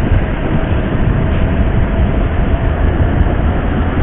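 Steady wind and road rumble heard while riding a motorcycle, dense and low.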